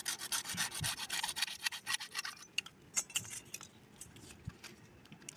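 Knife blade scraping a short plastic pipe piece by hand, in quick repeated strokes for about two and a half seconds, then a few scattered scrapes.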